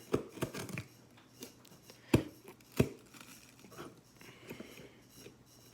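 Scattered clicks and taps of a small cardboard shipping box being handled and opened by hand, with two sharper knocks about two and three seconds in.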